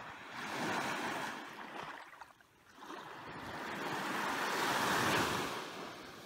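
Small waves washing up onto a sandy beach: two gentle swells of surf, the first about a second in, the second building to a louder peak near the end and then fading.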